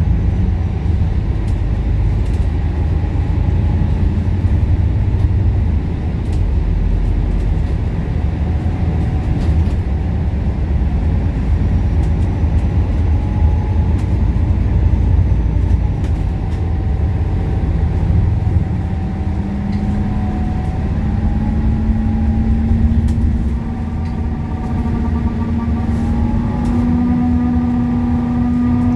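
MAN ND323F double-decker bus under way: a steady low engine and road rumble. About two-thirds of the way in, a humming whine comes in and climbs slowly in pitch as the bus gathers speed.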